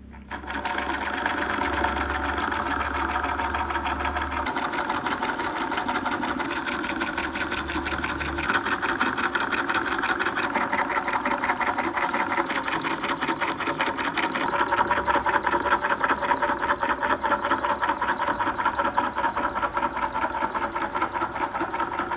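Small homemade flywheel-and-crankshaft rig with an electric motor, set going by hand about half a second in and then running fast with a steady, rapid mechanical clatter.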